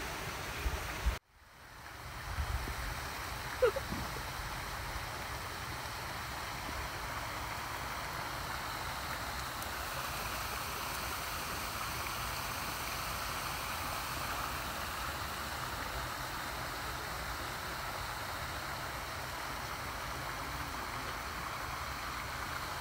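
A steady rushing noise like running water fades in after a brief dropout about a second in, with one short squeak a couple of seconds later.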